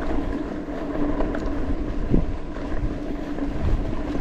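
Mountain bike riding over a dirt trail: tyre and frame rattle with wind on the microphone, over a steady hum.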